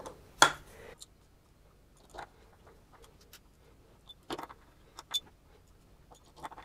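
Scattered light clicks and taps of small metal parts and a screwdriver being handled on a tabletop, a handful of separate strikes with the sharpest about half a second in.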